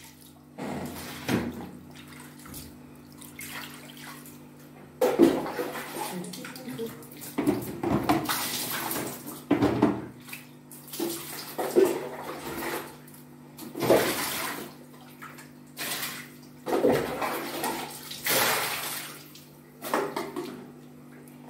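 Water thrown from a plastic scoop onto a tiled bathroom floor and walls, splashing again and again, roughly every one to two seconds.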